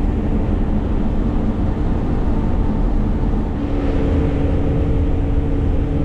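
Cotton stripper running steadily while harvesting, heard from inside the cab: a constant engine and machinery drone with two steady hum tones that shift slightly in pitch a little past halfway.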